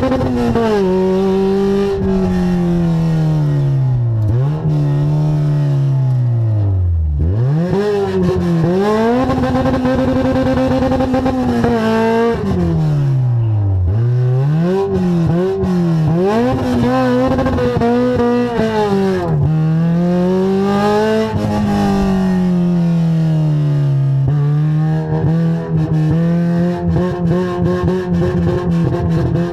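Toyota AE86 Trueno's four-cylinder engine heard from inside the cabin while driven hard on track, revs climbing and falling over and over. Twice, about a quarter and about half way through, the revs drop very low before climbing again.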